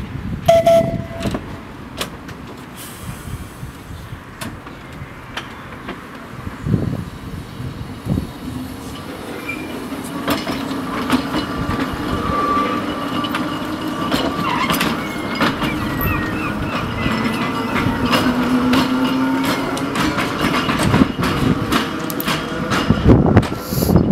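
Narrow-gauge electric tram pulling away and gathering speed, heard from on board. The motor's whine rises in pitch as it speeds up, while the wheels click and rattle over rail joints and points. There is a brief high tone near the start.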